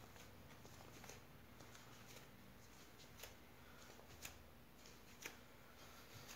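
Faint clicks about once a second from bare feet treading a mound of white porcelain clay on a wooden board, over quiet room tone.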